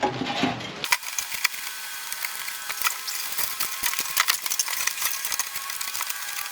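Thin refrigerator sheet metal rattling with quick irregular clicks and ticks as it is handled and bent into a rough cylinder. From about a second in the sound turns thin and tinny, with no low end.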